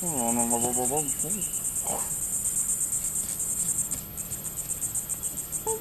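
Crickets chirping steadily in a fast, high-pitched pulse, easing slightly about two-thirds of the way through. In the first second a performer's voice makes a held, wavering hum that drops in pitch at its end.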